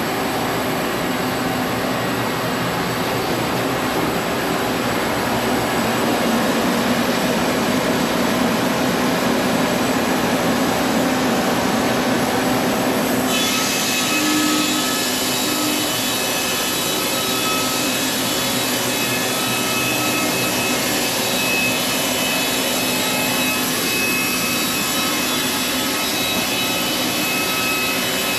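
Sawmill running steadily as it cuts through an old heart pine beam. About halfway through, the sound changes abruptly, turning brighter and taking on a high whine.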